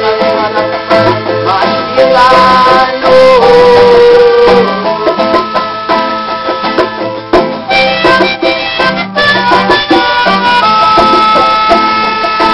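Instrumental passage of a live acoustic band: a melodica plays the melody, holding one long high note in the second half, over a strummed charango and acoustic guitar.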